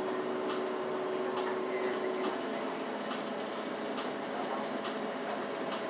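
Interior of a moving city bus: a sharp, regular tick a little more than once a second over the bus's steady running noise, with a steady hum that stops about two seconds in.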